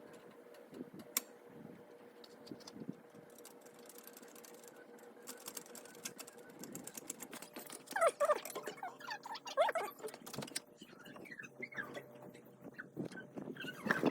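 Scattered light clicks and knocks, with short squeaky rubbing sounds about eight and ten seconds in.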